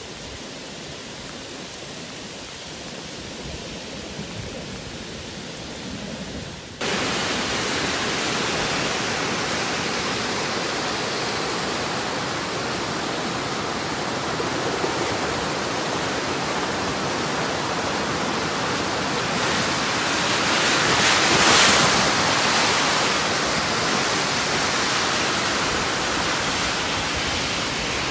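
Steady rushing noise of a heavy rainstorm, with no single drops or impacts standing out. It jumps suddenly louder about seven seconds in and swells briefly around twenty-one seconds.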